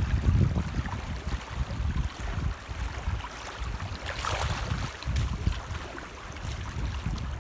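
Shallow river flowing and rippling around a rock, with wind buffeting the microphone in uneven low rumbles. A brief louder rush of hiss about four seconds in.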